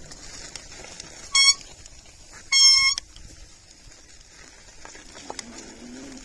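Two electronic beeps, a short one about a second in and a longer one about a second later.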